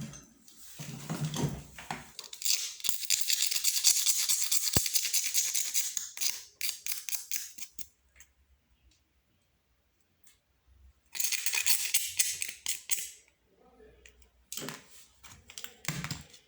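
Plastic and metal parts of an old telephone being handled and scraped during disassembly: three bursts of scratchy rubbing with small clicks, separated by near-quiet pauses.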